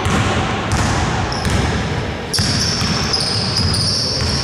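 Basketball dribbled on a wooden gym floor: a thud roughly every two-thirds of a second, echoing in the hall. A thin high squeak-like tone joins about halfway through.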